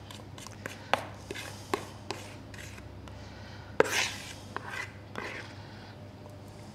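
Metal spoon and plastic mixing bowl knocking and scraping as thick icing is poured out and spread onto a sponge cake: a few sharp clicks, with one louder knock about four seconds in.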